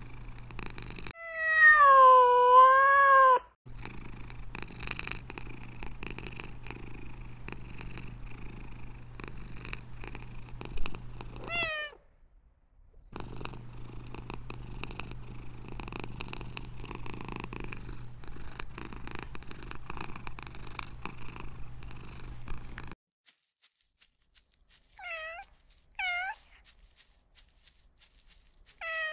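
Domestic cat meowing once in a long, wavering call, then purring steadily for most of the time, broken by one short meow. After the purr stops there are two short meows, and a third near the end.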